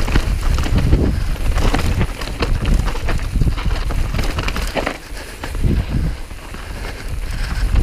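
Mountain bike descending a rough dirt trail at speed: tyres on dirt and a dense run of clicks, knocks and rattles from the bike over bumps, with wind rumbling on the microphone. It quietens for a couple of seconds about five seconds in.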